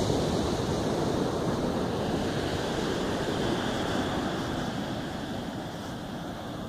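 Steady rush of sea surf on a sandy beach, with wind rumbling on the microphone.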